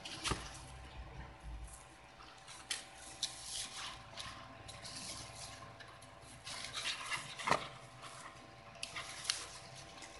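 Soft protective wrapping sheet rustling and crinkling as hands pull it off an electric shaver in its cardboard box, in irregular crackles with a sharper crinkle about seven and a half seconds in. A faint steady hum runs underneath.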